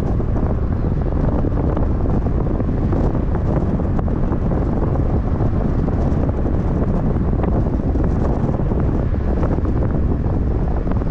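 Steady low rumble of wind buffeting the microphone of a camera on a moving vehicle, mixed with road noise.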